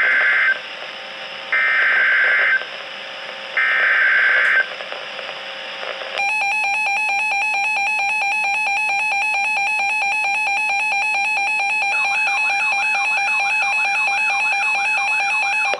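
Emergency Alert System broadcast on NOAA Weather Radio: three one-second bursts of SAME digital header data with radio hiss between them, then about six seconds in a long steady alert tone that runs on. This is the coded header and attention signal that opens a severe thunderstorm warning.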